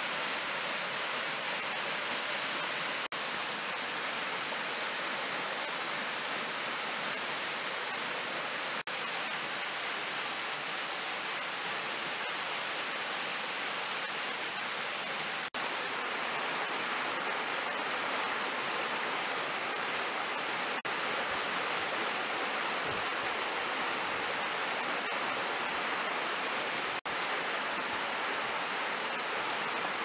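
Small waterfall of three thin streams splashing into a shallow, rocky pool: a steady, hissing rush of water, mostly high-pitched with little low rumble, broken by a few split-second gaps.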